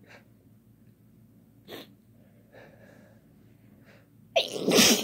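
A person's loud sneeze about four seconds in: a short catch followed by a longer, noisy blast.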